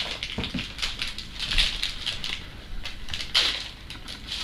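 Crinkling and rustling of a trading-card pack wrapper and cards being handled, in several short bursts.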